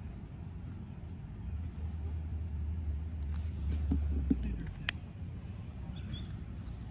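A low rumble swells for about three seconds and fades, followed by a single sharp click.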